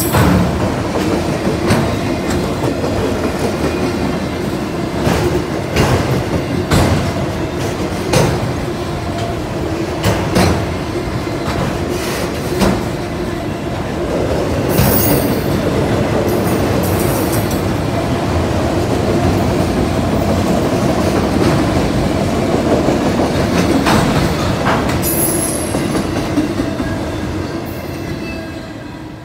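Autorack freight train cars rolling past on steel rails: a steady rumble with irregular clacks from the wheels and brief high-pitched wheel squeals twice. The sound fades near the end.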